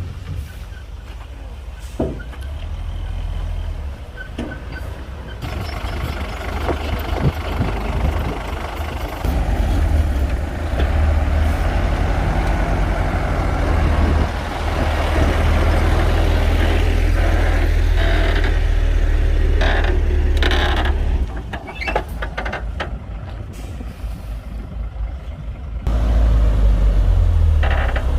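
Heavy diesel earthmoving machinery working: a deep engine rumble that builds up a few seconds in, eases off past the twenty-second mark and picks up again near the end, with scattered metallic clanks.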